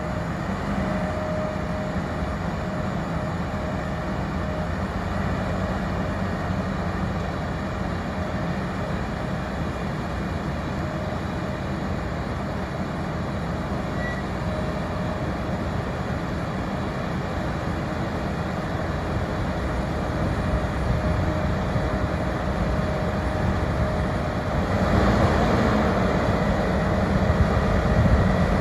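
Potato harvester and tractor running steadily at work, a dense machine noise with a faint steady whine, growing louder in the last few seconds.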